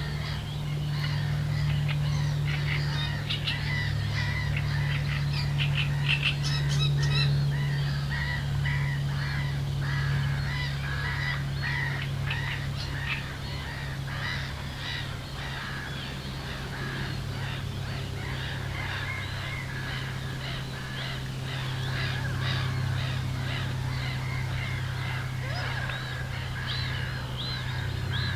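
Many birds calling and chirping in a dense, overlapping chorus, with honking calls among them, over a steady low hum.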